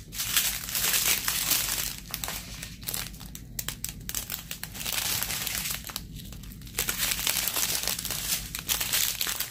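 Strips of small clear plastic zip bags holding diamond painting resin drills crinkling as they are handled, on and off, with short lulls about three and a half and six seconds in.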